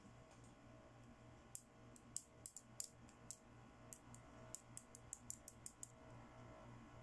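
Light, sharp clicks and taps of small plastic toy accessories being handled, about twenty in irregular quick succession over a few seconds, with a faint steady low hum behind.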